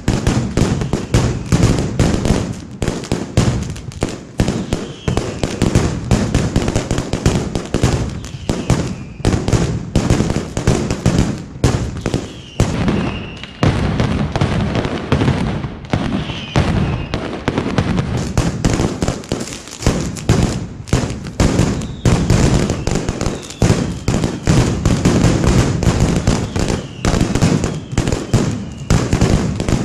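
Mascletà firecrackers exploding in a dense, continuous barrage of loud bangs, with a few short whistles mixed in.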